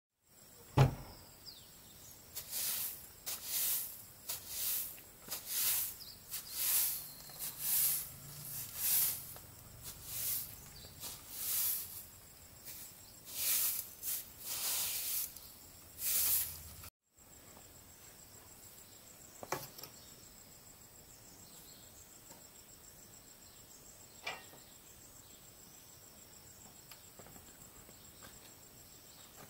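A run of dry rustling or scraping strokes, about one a second, for the first half. After a sudden cut, insects trill steadily at a high pitch, broken by a couple of faint clicks.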